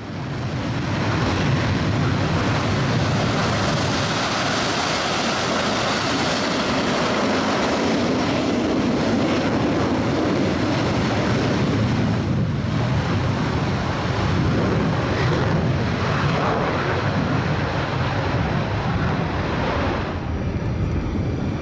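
KT-1B Woongbi single-engine turboprop trainers flying past in formation, a steady loud drone of engines and propellers.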